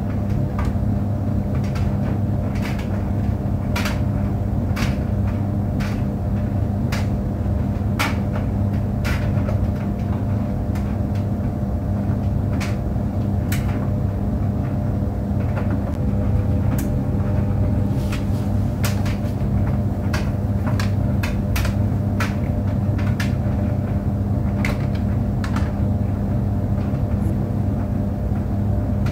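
Tumble clothes dryer running: a steady low hum and rumble from the motor and drum, with irregular light clicks and knocks about once or twice a second.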